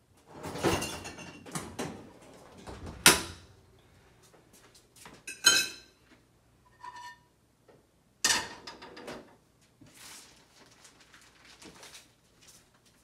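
Cookware clattering in a kitchen as a frying pan is taken out and set on an electric stove: a series of knocks and bangs, a loud metallic clang that rings briefly about five seconds in, and a short electronic beep about seven seconds in.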